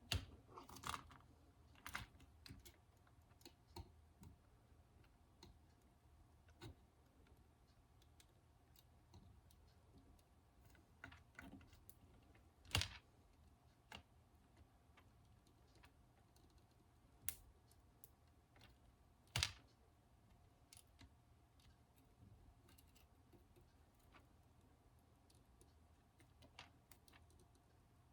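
Quiet, scattered small clicks and taps from hands working on small parts, with two sharper clicks about halfway and about two-thirds through, over a faint steady hum.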